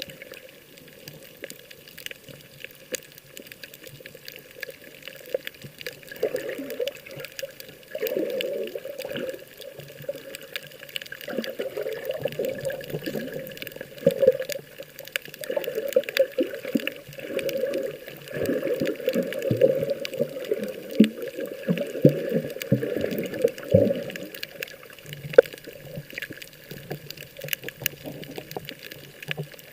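Sea water sloshing and splashing in irregular surges, busiest through the middle of the stretch.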